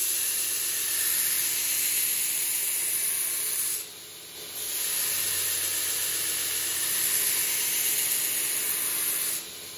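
Steel knife blade held in a grinding jig and pressed against the abrasive belt of a running belt grinder, grinding the bevel: a loud steady hiss. The hiss breaks off briefly about four seconds in, then resumes and stops just before the end.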